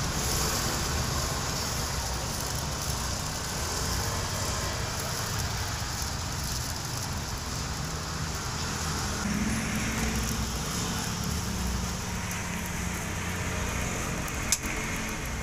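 Steady low rumble of road traffic with a hiss over it from takoyaki batter sizzling on a hot griddle. A single sharp click near the end.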